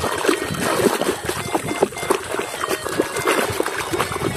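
A hand swishing and splashing through a tub of soapy, muddy water: a continuous, irregular run of small splashes and sloshes.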